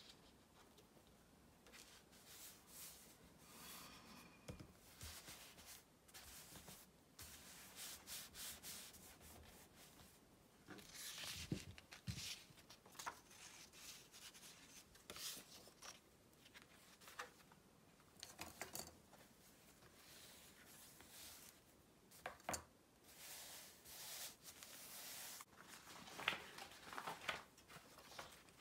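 Hands rubbing and smoothing paper onto the pages of an old book. It is a soft, scratchy swishing that comes and goes in short strokes, with a few light taps.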